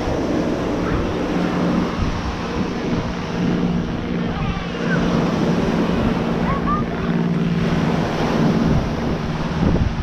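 Beach ambience: wind buffeting the microphone over the wash of surf, with scattered voices of beachgoers and a steady low hum underneath.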